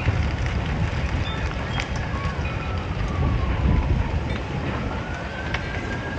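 A large wooden barn burning fully engulfed: a steady low roar of flames with scattered sharp crackles and pops from the burning timber. A faint tone glides slowly down and then back up in the background.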